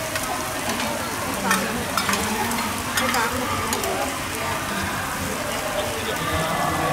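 Oysters and eggs sizzling in oil on a large round flat griddle. Metal spatulas scrape and click against the pan a few times.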